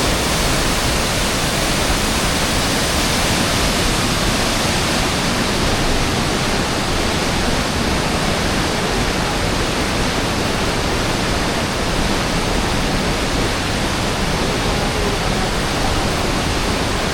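Steady, loud rush of river water, an even hiss with no breaks.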